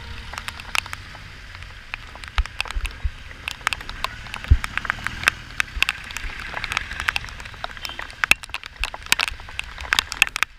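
Steady rain, with many irregular sharp raindrop ticks striking close to the microphone on the camera, over a low rumble of traffic on the wet road.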